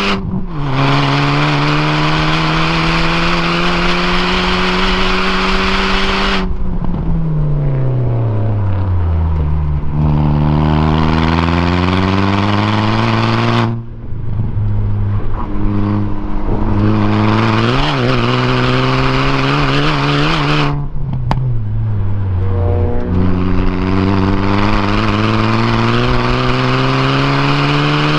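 The 2017 Hyundai Elantra Sport's turbocharged 1.6-litre four-cylinder, with a catless downpipe and aftermarket exhaust, heard from inside the cabin under hard track driving. The engine note climbs steadily in pitch under full throttle, then drops off and falls as the driver lifts for corners, about three times, before pulling up through the revs again.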